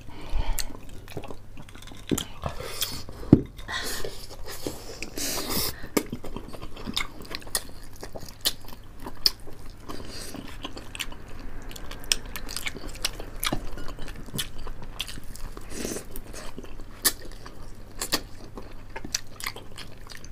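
People chewing and biting into crispy fried chicken, with irregular sharp crunches of the fried skin.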